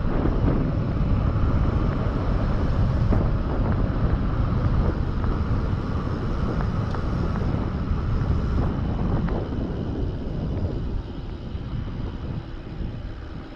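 Wind buffeting the microphone and mountain bike tyres rolling on asphalt as the bike coasts downhill, with a few light clicks; the noise grows quieter over the last few seconds.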